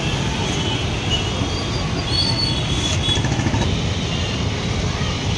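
Steady low rumble of street traffic, with a few faint high-pitched squeaks about two seconds in.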